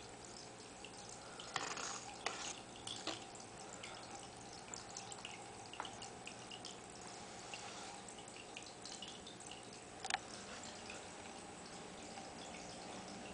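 Water trickling and dripping into a fish tank, a steady splashy hiss full of small drips. A few sharper clicks come in the first three seconds and one more about ten seconds in.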